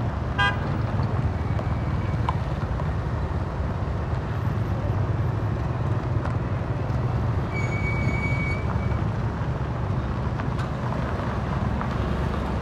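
Diesel engine of a truck crane running steadily with a low rumble, driving the crane's hydraulics while a wrecked truck hangs from the hook. A short high-pitched squeal sounds for about a second about eight seconds in.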